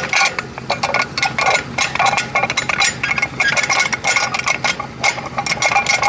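Bent steel rod being worked out of its hole in a rusty steel lockout plate, with padlocks on the plate clinking and rattling: a rapid, irregular run of metal clicks and clanks.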